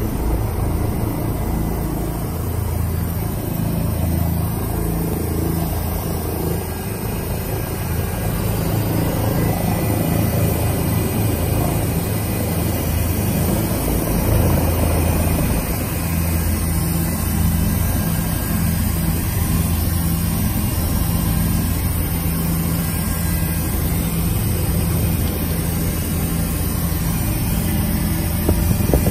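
Helicopter's engine and rotor running steadily, heard from inside the cabin as an even low hum under a broad rushing noise.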